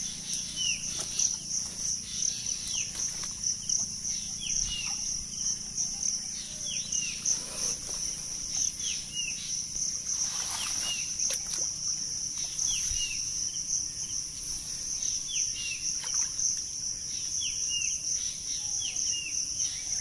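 A steady, high-pitched insect drone, with a bird repeatedly giving short falling chirps, often in pairs, about once a second. Water sloshes briefly a couple of times in the middle, as the shallow ditch water is disturbed by hands.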